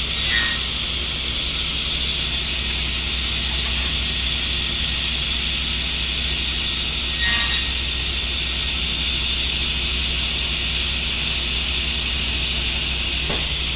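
Table saw blade running with a steady high whine, cutting through a wooden board twice, briefly, about seven seconds apart (one cut at each end of the board). Near the end the whine begins to drop in pitch as the saw is switched off and spins down.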